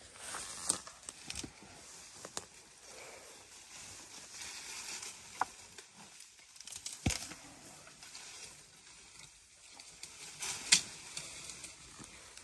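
African elephant foraging with its trunk in dry brush and loose soil, tearing at roots: a continuous dry crackling and rustling with several sharp snaps, the loudest near the end.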